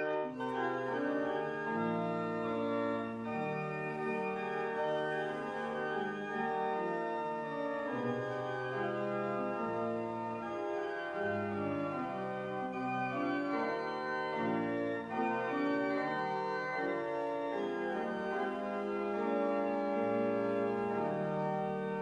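Organ playing slow music in held, sustained chords.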